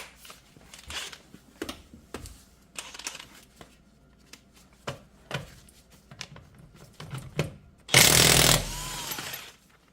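Clicks and knocks of a 21 mm impact socket being fitted and handled. About eight seconds in, an impact wrench runs in a loud burst of about a second and a half, spinning a nut off with the socket.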